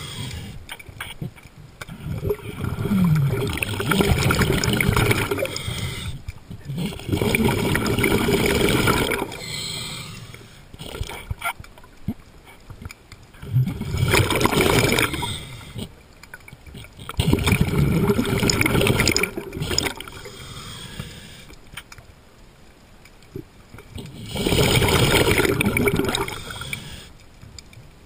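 A diver's breathing heard underwater through the mask's microphone: five gurgling surges of exhaled bubbles a few seconds apart, with quieter stretches of water noise between.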